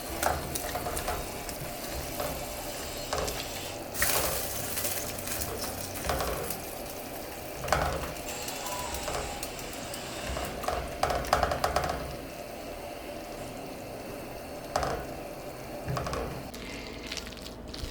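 Cookware being handled in a kitchen: scattered clanks and knocks of a metal pot and utensils over a steady background noise, with louder knocks about four, eight and eleven seconds in.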